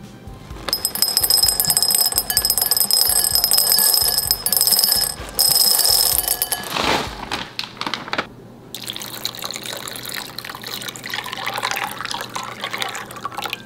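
Hard dried lotus seeds pour into a glass bowl, clattering, with the glass ringing brightly, for about six seconds. From about nine seconds in, a stream of water runs into the bowl over the seeds.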